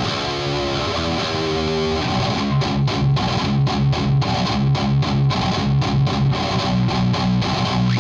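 Distorted electric guitar playing a heavy metal riff: held, ringing chords for about the first two seconds, then tight, stop-start chugging notes on the low strings.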